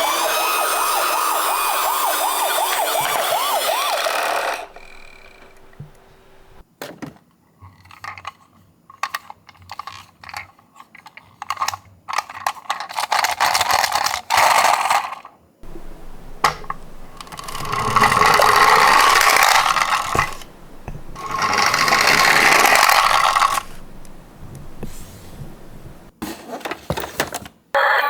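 An ambulance siren wailing with a wavering pitch for the first four or five seconds, then stopping suddenly. After it come the clicks and rattles of small diecast toy cars rolling down a slope, with several longer stretches of rolling rumble.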